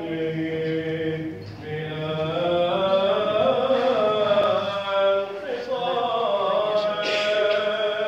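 Byzantine-style liturgical chanting by male voice, with long held notes and gliding turns between them.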